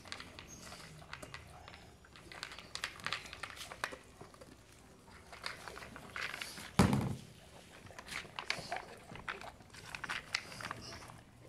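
Pit bull puppies eating dry kibble from bowls and moving about on a wooden table: scattered clicks, crunches and small knocks, with one loud thump about seven seconds in.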